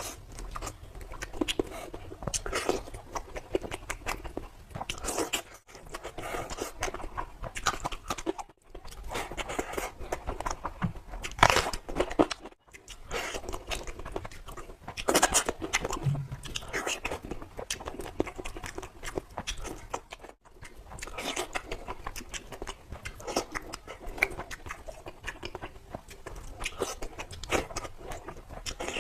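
Close-miked mukbang eating: a person biting and chewing mouthfuls of fish curry with rice and salad, full of wet smacks and clicks. A few sudden, brief drop-outs break it up where clips are joined.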